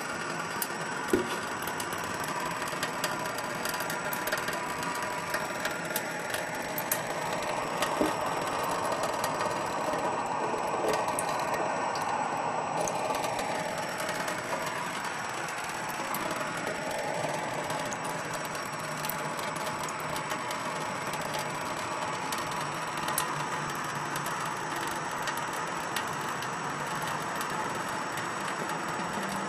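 Thin stream of tap water running from a faucet into a sink: a steady splashing hiss, with scattered faint ticks.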